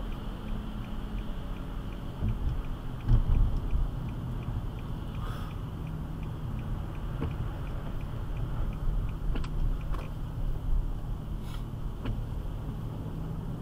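Road and engine rumble heard inside a moving car on a wet road, with a faint steady ticking about three times a second and a few brief knocks.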